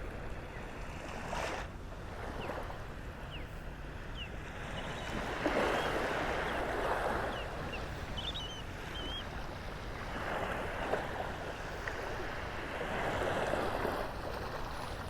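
Small waves lapping on the shore: a steady wash that swells and fades three times. There are a few faint high bird chirps about eight or nine seconds in.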